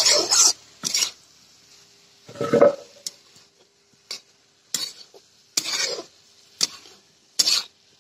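Steel spoon stirring and scraping fenugreek leaves and potatoes in a metal karahi, in about nine short strokes a little under a second apart, the loudest about two and a half seconds in. The bhurji is being stirred to dry off the water the fenugreek has released.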